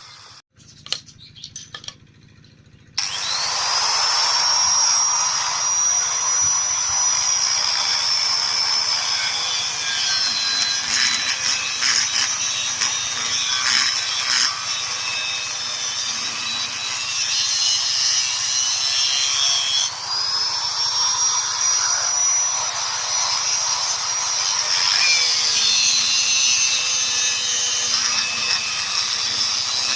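Handheld electric angle grinder working metal on a pair of locking pliers being repaired. It spins up with a rising whine about three seconds in and again around twenty seconds in, and there is grinding noise in between. A few light clicks come first.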